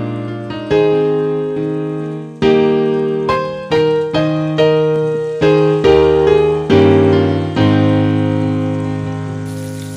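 Background piano music: a slow melody of struck notes about every half second, each fading before the next.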